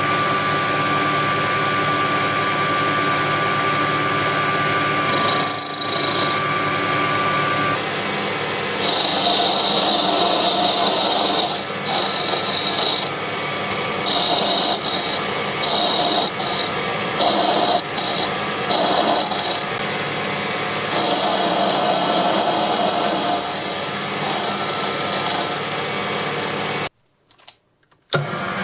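Proxxon PD 250e mini lathe running with a steady motor whine, and from about nine seconds in a high-pitched screech from the cutting tool turning down the metal shaft, coming and going over and over. The sound cuts out briefly near the end.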